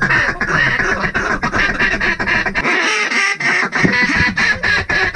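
Duck call blown by a hunter, a long run of quick quacks, calling to draw in approaching ducks.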